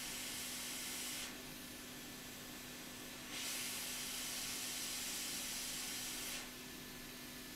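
Hot air rework station blowing a hissing jet of air onto the logic board to melt the solder under a small surface-mount component held in tweezers. The hiss cuts out about a second in, comes back about two seconds later and stops again near the end, over a faint steady hum.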